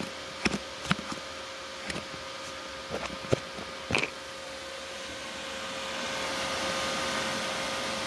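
Cooling fans of a Dell Inspiron 530 desktop running at full speed, a steady whoosh with a faint whine that grows louder from about five seconds in, with a few short clicks and knocks in the first half. The fans revved up with the power light stuck orange mean the machine is not booting, which the owner puts down to the motherboard rather than the power supply.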